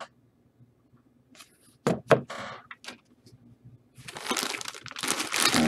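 Trading cards and crinkly plastic packaging being handled: a few short sharp clicks and taps, then a steady crinkling rustle from about four seconds in.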